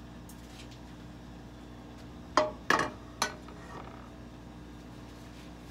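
Cookware being handled: three quick clinks and knocks of pans, about two and a half to three seconds in, the middle one a double knock with a brief ring.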